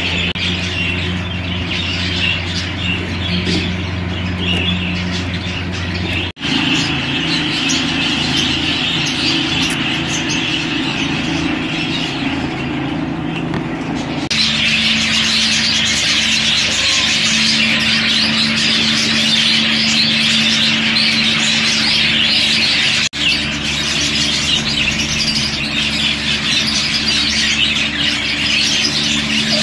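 Budgerigars chattering and chirping continuously in a dense, overlapping warble, over a steady low hum. The sound drops out for an instant twice and changes character where the clips are cut.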